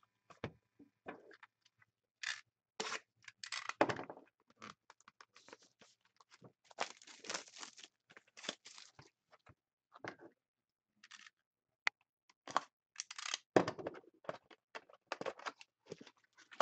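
Cellophane shrink wrap being torn and crinkled off a box of trading card packs by hand, in irregular rustling bursts with a few scrapes of cardboard, loudest about four seconds in and again near the end.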